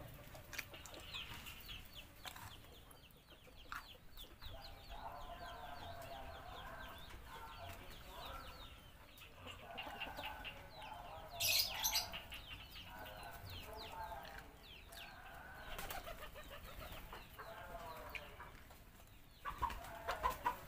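Domestic chickens clucking in runs of low, repeated calls. A brief loud rustling burst comes about halfway through.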